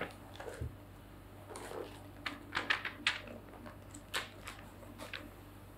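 Faint scattered clicks and taps from handling something out of view, about a dozen irregular ticks with the clearest ones around the middle, over a low steady room hum.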